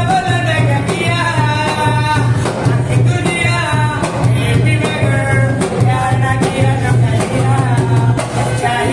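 Music with a singing voice over a repeating low drum beat.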